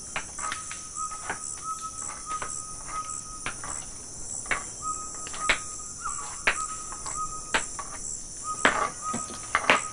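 Nature ambience of crickets chirping: a steady high trill pulsing about twice a second over a lower steady chirp that breaks off now and then. Scattered sharp clicks and knocks are heard throughout, with a louder noisy burst near the end.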